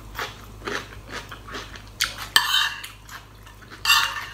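Crunchy chewing of fresh vegetables, then a metal spoon scraping and clinking against the plate while scooping laab. There are two louder scrapes, about two seconds in and near the end.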